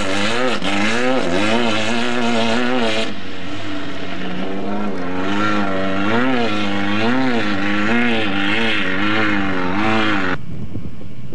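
Off-road race vehicle's engine revving hard, its pitch rising and falling over and over as it runs over rough desert ground. The engine sound cuts off abruptly about ten seconds in.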